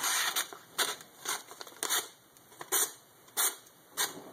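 Hand-made, edge-quenched 1095 carbon-steel knife slicing through a paper advertising flyer, about seven quick cuts in a row, each a short papery rasp. The paper parts easily, the sign of a very sharp edge.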